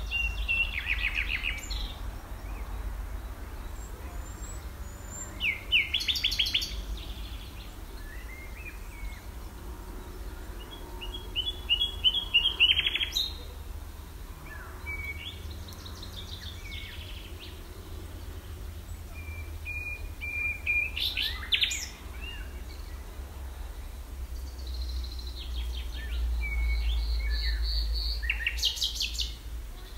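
Wild songbirds singing short, rapid chirping phrases every few seconds over a steady low rumble.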